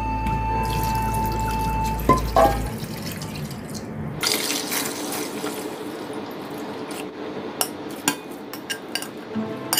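Soy sauce being poured from a glass into a pot of boiled quail eggs, splashing into the liquid from about four seconds in. It follows two sharp knocks a little after two seconds in, and there are light clicks near the end.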